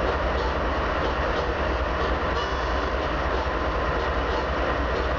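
Freight train of open-top hopper cars rolling past at a steady speed: a continuous rumble of steel wheels on rail, with faint, evenly spaced clicks of wheels passing over rail joints.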